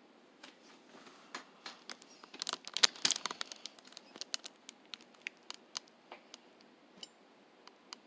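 Sharp crinkly clicks and ticks, bunched thickly about three seconds in and then scattered: handling noise as a mealworm is put into a leopard gecko's enclosure.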